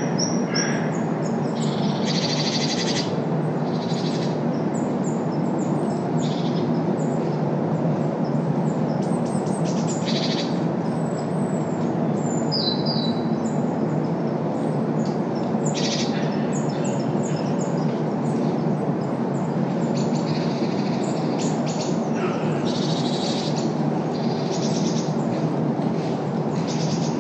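Steady road-traffic rumble with the lowest bass filtered out, and birds calling over it with many short high chirps and calls scattered throughout.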